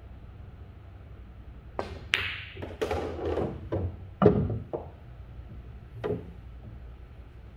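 Billiard balls on a pool table: the cue tip strikes the cue ball about two seconds in, and the cue ball clacks into the object ball just after. A run of knocks and thuds follows as the balls hit the cushions and the object ball drops into a pocket, with one more knock a little later.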